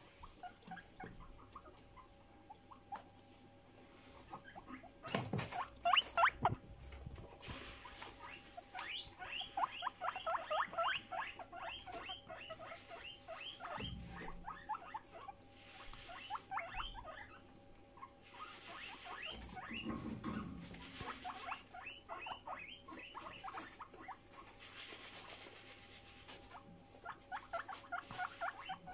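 Guinea pigs wheeking: runs of short, high squeals repeated in quick series, the begging call of guinea pigs that smell their food. Wood-shaving bedding rustles under their feet, and a couple of loud knocks come about five to six seconds in.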